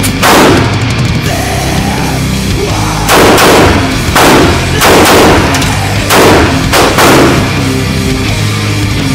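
Heavy metal music plays throughout, with several loud pistol shots at uneven intervals, each ringing with a short echo off the walls of an indoor range.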